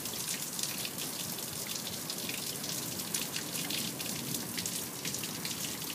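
Heavy rain falling steadily, a dense patter of drops and drips with no letup.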